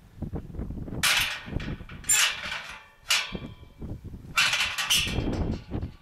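Galvanised steel field gate clanking and rattling as it is opened and shut, its latch and bars knocking. About five sharp metallic clanks, each ringing briefly: one about a second in, another about two seconds in, a shorter one about three seconds in, and two close together near the end.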